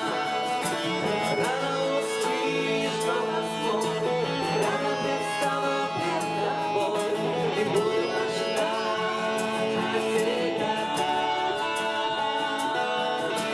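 Instrumental passage of a worship song between sung lines: guitar-led music with bowed strings and a steady light beat.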